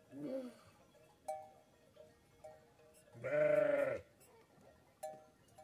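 Kangal sheep bleating: a short bleat right at the start, then a louder, longer bleat about three seconds in.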